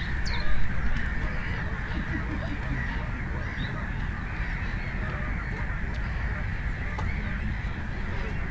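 A few short honking bird calls about half a second in, over a steady low background rumble.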